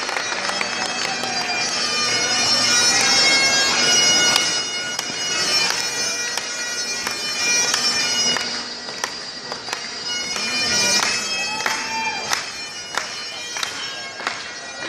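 Great Highland bagpipes playing a tune over their steady drones. Through the second half a run of sharp hits sounds along with the pipes.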